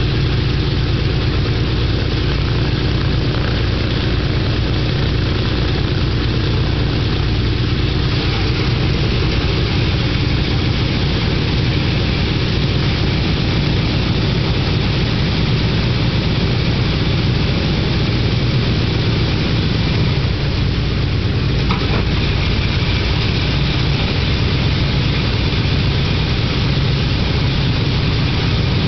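Boeing B-17 Flying Fortress's Wright R-1820 Cyclone radial engines running steadily at low power with propellers turning, a deep, even engine drone under a rushing hiss.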